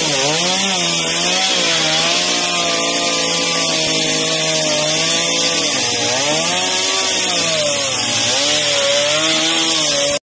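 Chainsaw running while cutting through a fallen tree, its pitch dipping under load and picking up again several times, then cutting off abruptly near the end.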